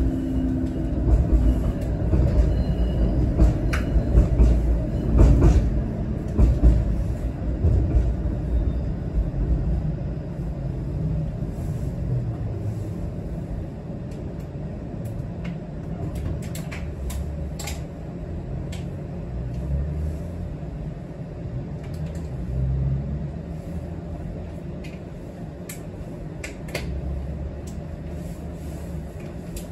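Inside a TTC Flexity streetcar: a low rumble of the car running on the rails that eases off over the first several seconds as it slows to a stop, then a quieter steady hum while it stands at the platform, with scattered small clicks and knocks.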